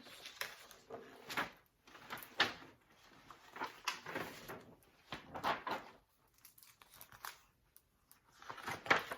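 Paper rustling and crinkling in uneven bursts as the pages of a large picture book are turned and handled.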